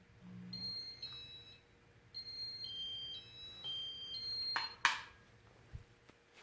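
Electronic beeps from a Casablanca ceiling fan's control running its demo mode: a string of short tones stepping between a few different pitches. Two sharp clicks follow near the end, the second the loudest sound.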